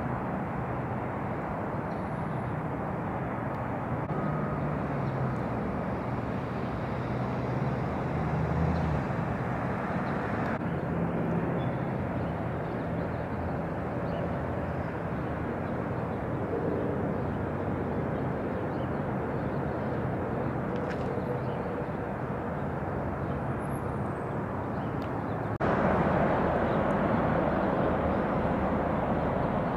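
Steady outdoor background noise with a low hum underneath, stepping up and down in level a few times.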